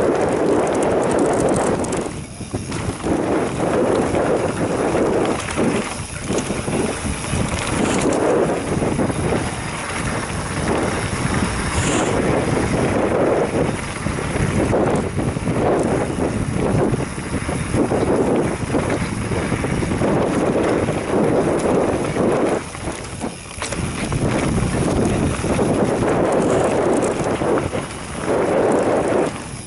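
Wind buffeting the microphone of a camera riding on a mountain bike, mixed with the tyres rumbling and the bike rattling over a rough dirt singletrack on a downhill run. The noise surges and eases with speed, dropping briefly a few times.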